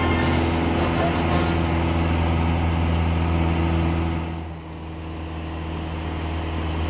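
Light aircraft's piston engine and propeller droning steadily, heard inside the cabin. The sound dips briefly about four and a half seconds in, then comes back.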